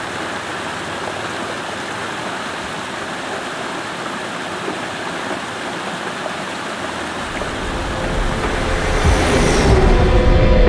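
Mountain stream rushing and splashing over rocks, a steady water noise. Over the last three seconds a deep rumble swells up and grows louder, with a brief rising whoosh near the end.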